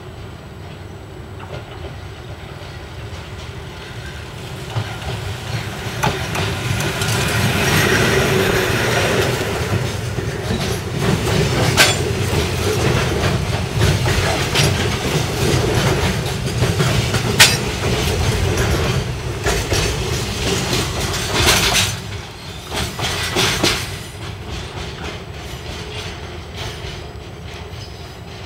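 Gakunan Railway freight train hauled by electric locomotive ED402, approaching and passing close by, its container wagons clattering over rail joints with sharp clicks. The rumble builds over the first several seconds, is loudest through the middle, drops off sharply a little after the two-thirds mark, then fades as the train draws away.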